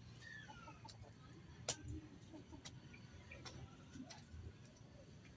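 A few sharp clicks at uneven intervals, the loudest a little under two seconds in, over a faint outdoor background, with a short falling bird chirp near the start.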